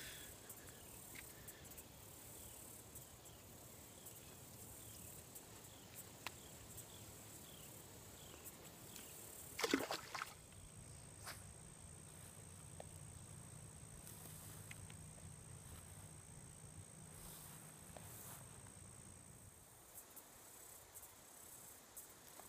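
Faint pond-side ambience of insects: a quick, repeated high chirp through the first half, then a steady high thin buzz through the middle. One sharp knock comes about ten seconds in.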